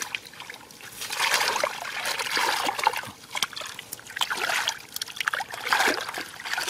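Shallow muddy water splashing and sloshing as hands grope through it and the mud beneath, in several spells of a second or two with small wet slaps.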